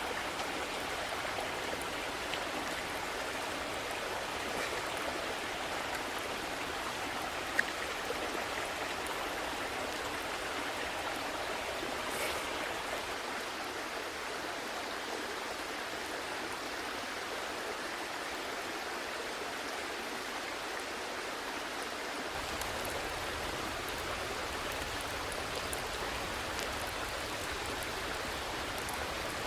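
A small stream babbling steadily. There is one sharp click about a third of the way in, and a faint low rumble joins about three-quarters of the way through.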